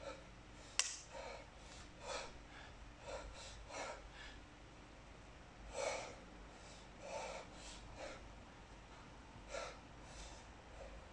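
A man's heavy breathing during a set of kettlebell snatches: short, forceful breaths in and out every second or so, the breathing of hard exertion. A single sharp click, the loudest sound, comes about a second in.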